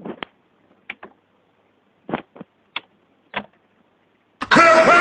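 A scattering of short clicks and knocks from hands working on the car, about eight over three and a half seconds. Near the end a loud man's voice breaks in.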